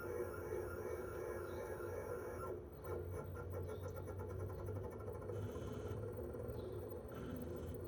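Toshiba RAS-4069AV outdoor unit's twin-rotary inverter compressor running steadily in defrost mode, a hum with several steady tones and no fan noise, since the fan stops during defrost. About two and a half seconds in, a high whine cuts out and the level dips briefly before the hum carries on.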